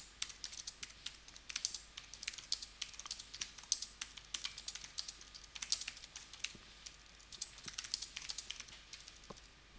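Typing on a computer keyboard: a fast, uneven run of key clicks with brief pauses, stopping shortly before the end.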